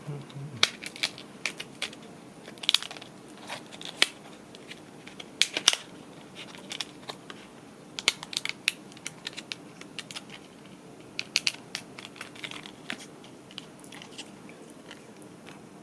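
Hands handling a micro SD card's small plastic packaging and parts: irregular clicks, taps and crinkles.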